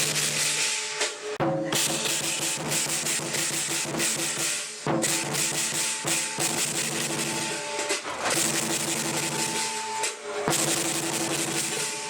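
Chinese lion dance percussion: a drum beaten fast and steadily under clashing cymbals, with ringing metal tones, breaking off briefly a few times.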